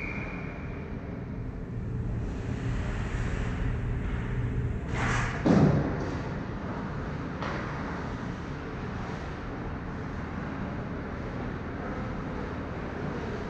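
Ice arena background noise: a steady low rumble, broken about five and a half seconds in by a single sharp knock, with a fainter click about two seconds later.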